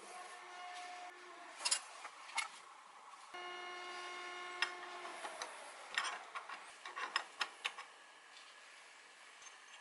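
Light metal clicks and clinks as the milling machine's spindle locking rings are handled and fitted around the spindle, coming thickest in a quick run in the second half. About a third of the way in, a steady pitched hum sounds for about two seconds and slides down in pitch as it fades.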